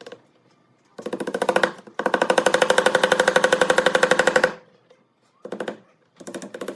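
Sewing machine stitching in stop-start runs, a fast even rattle of about a dozen stitches a second over a motor hum, with the longest run about two and a half seconds.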